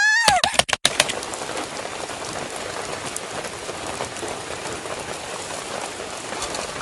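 Steady rain falling and pattering. At the very start there is a short wavering high-pitched call and a few sharp clicks.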